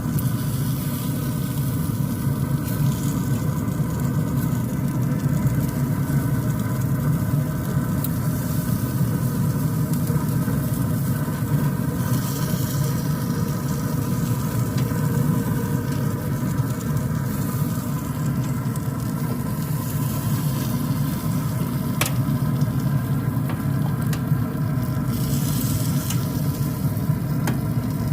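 Chicken wings sizzling on a grill, over a steady low rumble, with a few faint clicks.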